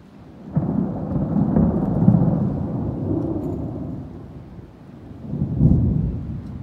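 Thunder: a rumble that breaks in sharply about half a second in, rolls on for a few seconds and dies down, then swells again briefly near the end.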